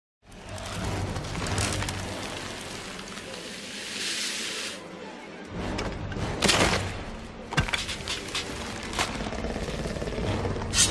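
Action-film soundtrack: background score mixed with sound effects. After a moment of silence it opens into a steady noisy rush for the first few seconds, then a run of sharp hits and bangs through the second half.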